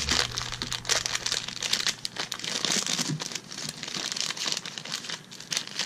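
White cotton gloves rustling against a plastic 4-colour ballpoint multi pen as it is handled, with many small plastic clicks and scrapes while the barrel and grip section are fitted together.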